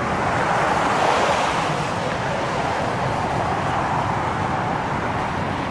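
Steady jet roar from the Boeing 777-300ER's GE90 engines as the airliner lands, swelling slightly about a second in.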